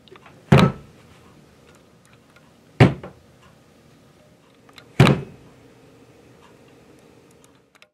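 Three slow, heavy knocks, about two seconds apart, each with a short echo.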